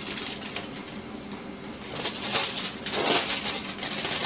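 Aluminium foil crinkling and rustling as it is folded up by hand into a wrap. It comes in bursts, with a quieter stretch about a second in.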